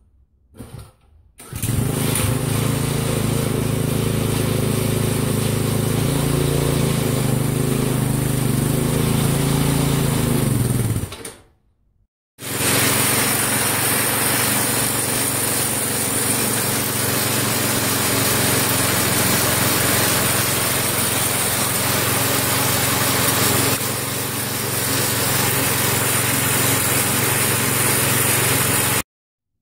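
Small 3–4 horsepower single-cylinder lawn-tractor engine on a homemade snow tractor, running steadily in two takes. The first fades out about 11 seconds in. After a short break the second starts, with the tractor up on a jack and its drive wheel spinning free, and cuts off suddenly near the end.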